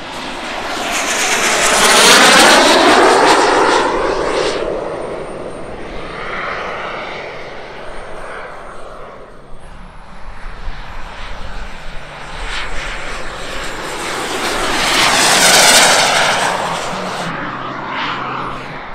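JetCat P-400 gas turbines of two large-scale model Alpha Jets flying past in formation: a loud turbine whine that swells and fades about two seconds in, with a falling sweep as the jets pass, then swells and fades again in a second pass about fifteen seconds in.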